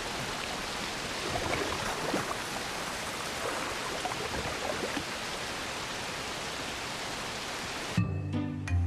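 Steady rushing of a waterfall pouring down, a sound effect in an animated film. It breaks off near the end, where music with low sustained notes comes in.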